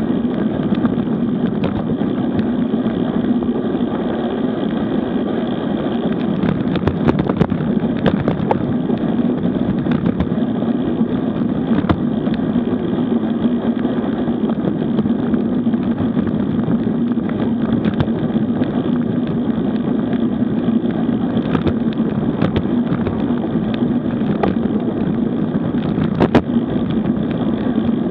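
Steady wind and road rumble on a bicycle-mounted action camera while riding a road bike along a paved road, with scattered sharp knocks from bumps in the road, the loudest near the end.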